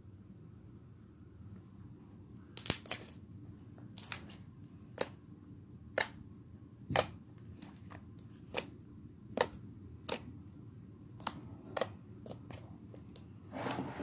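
Sticky slime being squeezed and pulled apart by hand for ASMR, giving short, sharp pops and clicks about once a second from a few seconds in.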